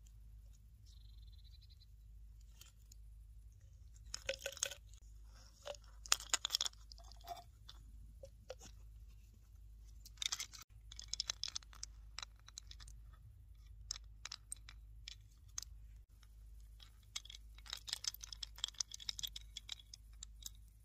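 Quiet clicking and rustling as a reed-tube needle case, its stopper and bone needles are handled, in three short spells of crackly clicks.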